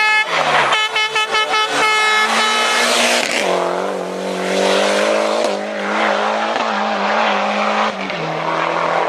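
Rally car engine revving hard in rapid stuttering bursts as it takes a tight bend. It is followed by a rally engine heard from farther off, holding a steady note under load and dropping in pitch once near the end.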